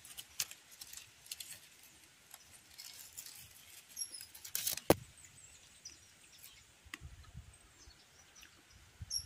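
Faint rustling of mulberry leaves and twigs as ripe mulberries are picked by hand, with scattered small clicks and one sharp click near the middle.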